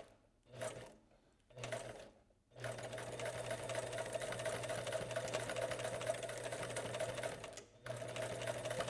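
Electric sewing machine stitching through nylon webbing and canvas: a few short bursts of stitching at first, then one long steady run that stops briefly near the end and starts again. It is the back-and-forth stitching, forward and reverse several times, that secures the webbing over the end of a handle.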